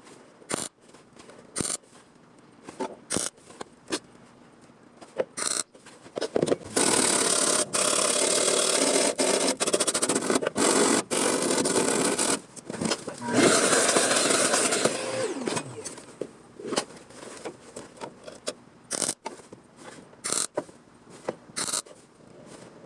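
Sheet metal being worked: sharp single snips of metal shears, then a handheld power tool grinds the metal in two long runs, about a third and again halfway in. Its motor winds down with a falling whine after the second run.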